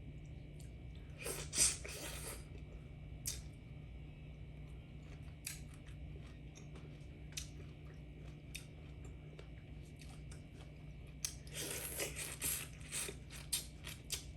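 A person eating close to the microphone: chewing with crisp crunches in a short burst about a second and a half in and again near the end, and small scattered clicks in between.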